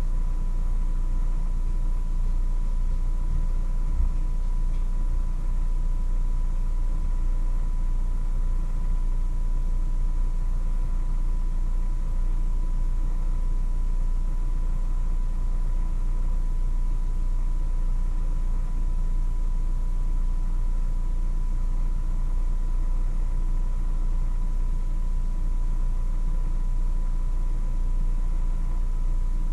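Steady low hum with a thin, unchanging high tone above it, and one small knock about four seconds in.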